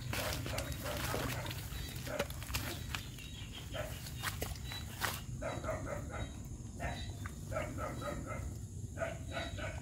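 An animal calling over and over in quick runs of short, pitched notes, several a second. A few sharp clicks come in the first half.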